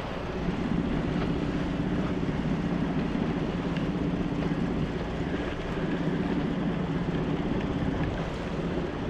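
Steady low drone of a boat's outboard engine, mixed with wind buffeting the microphone.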